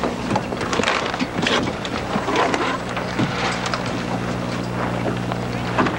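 Wind buffeting the microphone over a steady low electrical hum, with scattered small clicks and knocks as a sailboat's wire shrouds and rigging fittings are handled.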